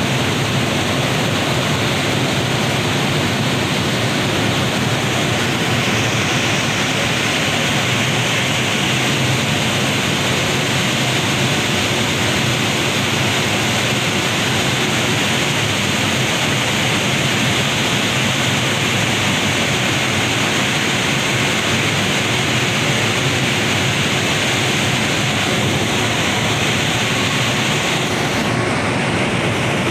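A loud, steady rushing hiss with no speech or distinct events, starting abruptly.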